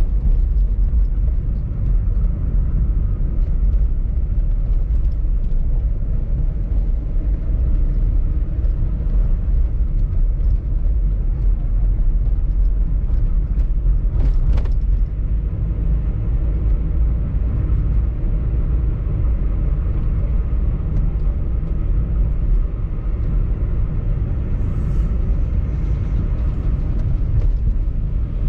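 Steady low rumble of a car travelling along a street, road and engine noise with no change in pace. Halfway through there is one brief, sharp click or knock.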